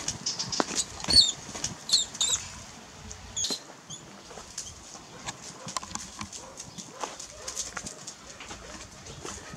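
Dry grass and leaves rustling and crackling, with a few sharp knocks. A few short, high-pitched squeaks come in the first four seconds.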